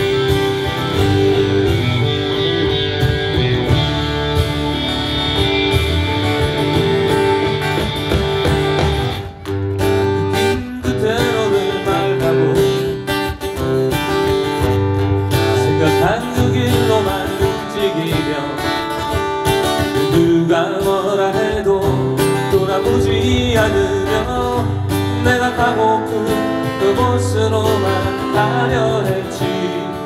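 Live band playing a song's instrumental introduction: acoustic guitars strumming over drums. The music dips briefly and changes texture about nine seconds in.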